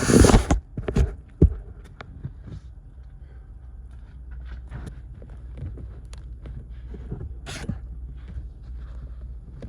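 Hands fitting an LED strip light up under a car's interior trim: a loud rustle and scrape at the start and two knocks in the first second and a half, then faint scattered clicks and rubbing over a low steady hum.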